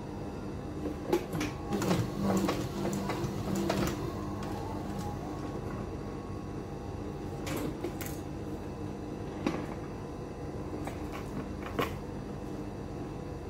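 Irregular clicks and knocks as leather is handled and positioned at an industrial sewing machine, denser in the first few seconds and then a few single ones, over a steady hum.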